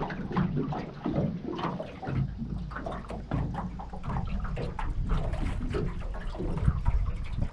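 Water splashing and lapping in irregular little crackles, with wind rumbling on the microphone from about two seconds in.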